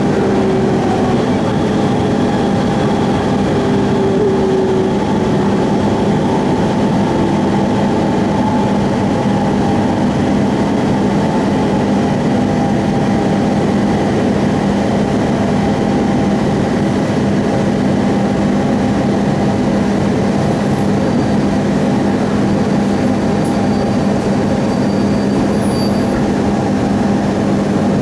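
Inside the cabin of a JR East 701 series electric train slowing for a station stop: dense, steady running noise over a constant electrical hum, with a falling motor whine in the first few seconds as it brakes.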